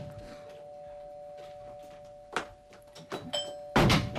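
Electric doorbell ringing on and on in two steady tones, with a few knocks over it, the loudest near the end.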